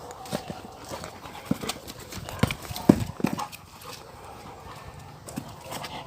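A dog playing with a football: irregular thumps, knocks and scuffs of paws and ball on the ground, loudest about halfway through.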